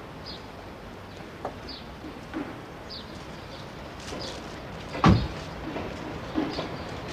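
A bird chirps repeatedly, one short high falling chirp about every second and a half. Among the chirps are a few light knocks and one heavy thump about five seconds in.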